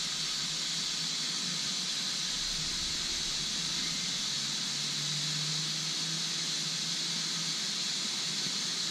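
Steady even hiss of background noise with no engine running, with a faint low hum coming in about halfway through.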